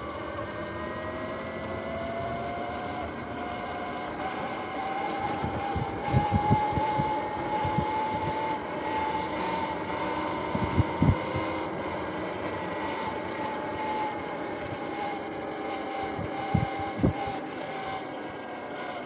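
Electric off-road bike's motor whining while riding along a dirt trail, its pitch climbing over the first several seconds, then holding and easing a little. Tyre and wind noise run underneath, broken by three pairs of short low thumps, about half a second apart within each pair.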